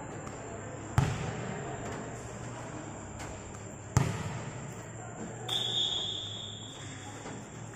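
A volleyball struck hard twice, about three seconds apart, each hit a sharp smack with a short ring after it. Then a whistle is blown once, a steady high tone lasting about a second.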